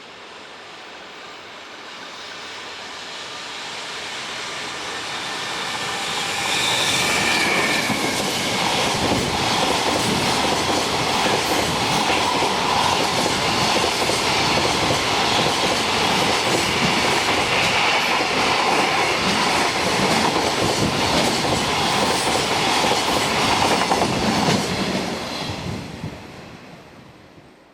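Freight train passing at speed. It grows louder over the first few seconds, then a long run of wagon wheels clatters over the rail joints for about eighteen seconds before it fades quickly away.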